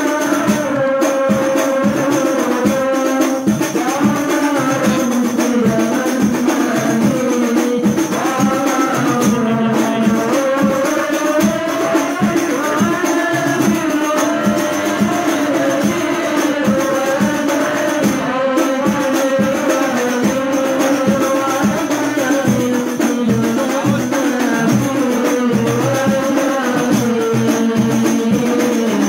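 Hadroh ensemble performing: voices singing a devotional melody over a steady, driving beat of rebana frame drums.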